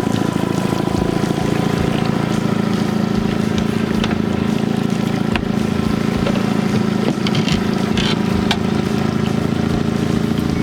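Boat's outboard motor running steadily at trolling speed, with a few light clicks partway through.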